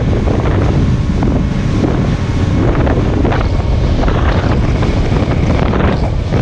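Heavy wind buffeting on the microphone over a boat's outboard motor running at speed, with water rushing past the hull.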